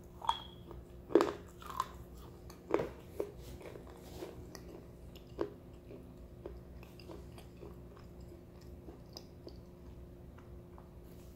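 Biting and chewing on a thin slate pencil, a stick of dried edible clay: several crisp crunches in the first half, the loudest about a second in, then fainter chewing clicks.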